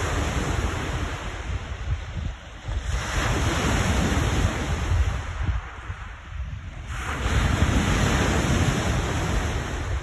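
Lake waves crashing on the shore in repeated surges, with strong washes starting about three and seven seconds in. Under them, gusty wind buffets the microphone with a constant low rumble.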